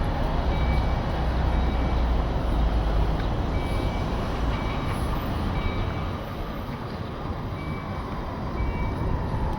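Strong wind buffeting the microphone over steady city traffic noise; the low rumble eases after about six seconds. A short, high electronic beep repeats about once a second throughout.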